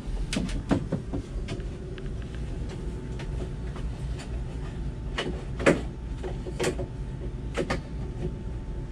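Clicks and knocks of a wooden cabin door being opened and swung, a sharper knock about five and a half seconds in, over a steady low rumble.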